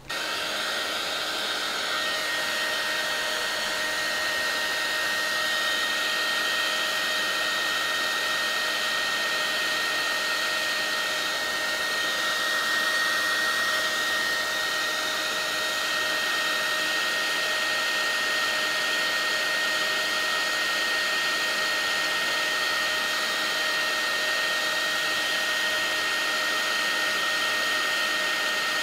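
Electric paint-stripping heat gun switched on and running steadily, its fan blowing a loud, noisy rush of hot air onto a solder-heaped circuit board to melt the solder. A steady high whine joins the rush about two seconds in.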